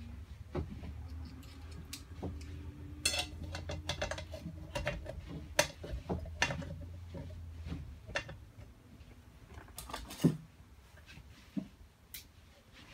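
Metal tools clinking, tapping and scraping against the metal hub and shaft of an LG top-load washer clutch assembly as it is pried apart. A sharper knock comes about ten seconds in.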